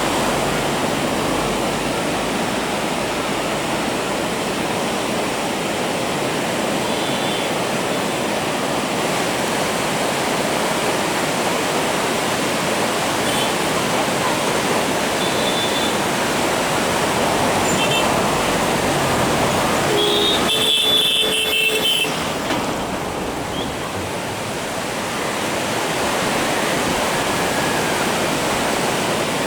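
Whitewater of a river rapid rushing steadily. A few brief high-pitched sounds break through it, the loudest about two-thirds of the way through.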